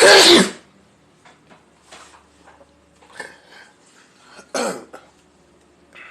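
A person sneezing: one very loud, explosive sneeze right at the start, after a breathy intake, then a second, shorter burst about four and a half seconds in, with faint sniffs and rustles between.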